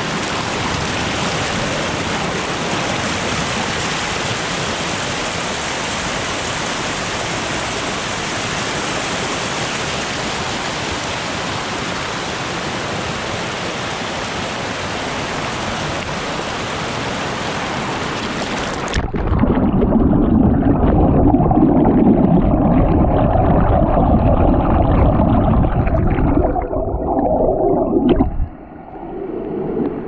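Shallow mountain stream rushing over rocks beside a dripping waterfall, a steady even rush of water. About two-thirds of the way through it cuts suddenly to a louder, deeper rumble with the higher sound gone, which drops away briefly near the end.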